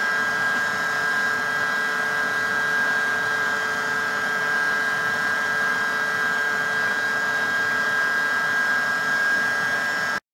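SilverCrest stand mixer's motor running steadily with a constant whine, beating cake batter while flour is added gradually. The sound cuts off suddenly near the end.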